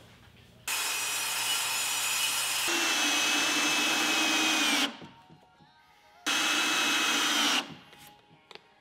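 Ridgid 18V cordless drill driving screws into half-inch plywood crate walls: one run of about four seconds that steps up in pitch partway and sags slightly near its end, then after a short pause a second, briefer run.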